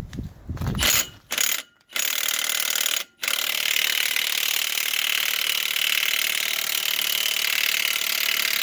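Impact gun hammering on a 34 mm axle nut socket, breaking loose the hub's axle nut: two short bursts, a brief pause, then a long steady run of about six seconds.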